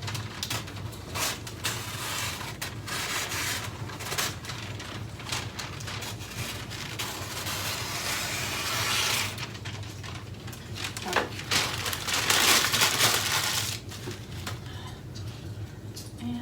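Wrapping paper rustling and crinkling as it is handled and cut, with scattered clicks and a longer, louder rustle about twelve seconds in.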